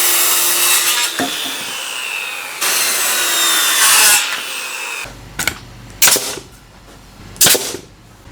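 Corded power saw cutting timber, its whine dropping in pitch under load, for about four seconds. Then two sharp nail-gun shots about a second and a half apart, driving nails to join the doubled-up lengths.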